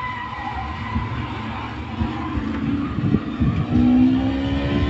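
Vehicle engine and traffic noise from a television action scene, with a long horn blast near the end.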